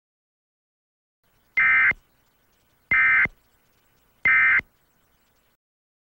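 Three short electronic data bursts of an Emergency Alert System end-of-message (EOM) signal, each lasting about a third of a second and spaced a little over a second apart. They mark the end of the alert message.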